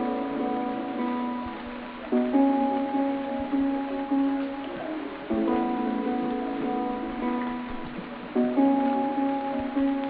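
Instrumental background music, its chords changing about every three seconds.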